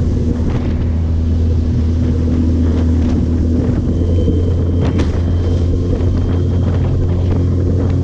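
Suzuki 15 hp four-stroke outboard running at a steady speed, pushing the small boat along, with wind buffeting the microphone and a few sharp knocks, the loudest about five seconds in.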